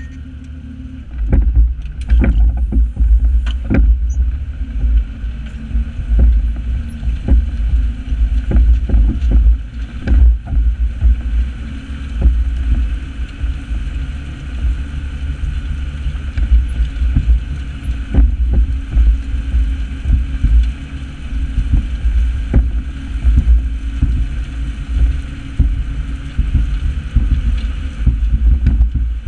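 New Holland 8160 tractor's six-cylinder diesel engine working under load while pulling a four-furrow reversible plough, with a heavy, uneven low rumble. Frequent sharp knocks and rattles run through it. It gets louder about a second in.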